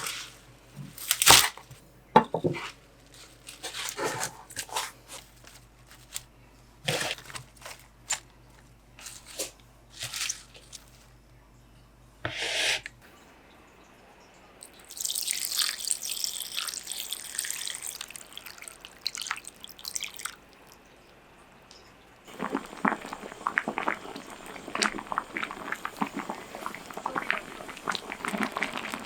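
Kitchen cooking sounds: scattered light knocks and clicks of utensils and dishes for the first half, then a few seconds of hissing, and a dense crackle through the last part.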